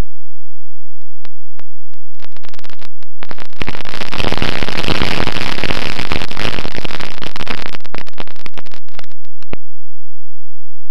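Crackling clicks that thicken into a loud, dense rush of hiss and crackle for about six seconds, then cut off suddenly.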